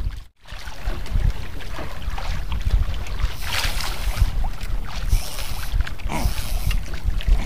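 Wind buffeting the microphone over the sound of sea water washing along an outrigger fishing boat, with a brief dropout about a third of a second in.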